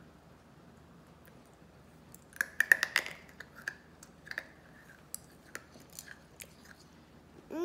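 A child chewing a small green skeleton-shaped candy. About two and a half seconds in there is a quick cluster of sharp crunches, followed by scattered clicks as she keeps chewing.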